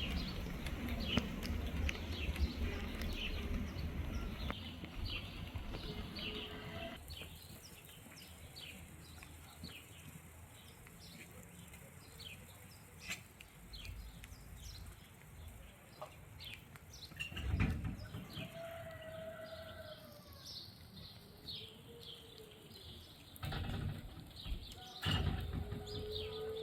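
Small birds chirping over and over, with a chicken calling a few times. A low wind rumble runs through the first several seconds and cuts off about seven seconds in.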